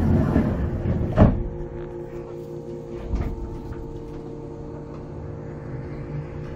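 Yamaman Yukarigaoka Line people-mover car standing at a station with its onboard equipment humming steadily. A noisy rush dies away, then the doors shut with a sharp thump about a second in, the loudest sound, followed by a smaller knock about two seconds later.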